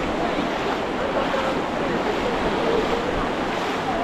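Surf washing onto a beach, with wind buffeting the microphone: a steady rush of noise with no sudden events.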